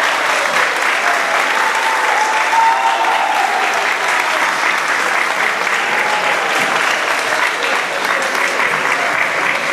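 Audience applauding: many hands clapping steadily after a speech.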